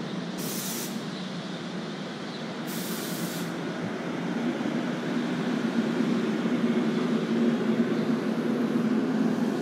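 NJ Transit commuter train coaches rolling past the platform as the train pulls into the station, with a steady rumble that gets somewhat louder toward the end. Two short hisses of air come about half a second in and about three seconds in.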